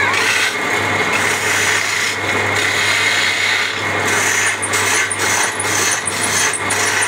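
A motor-driven wood lathe hums steadily while a hand-held turning chisel scrapes against the spinning wooden charpai leg in a continuous hiss. From about four seconds in, quick, repeated scratchy ticks join the cut.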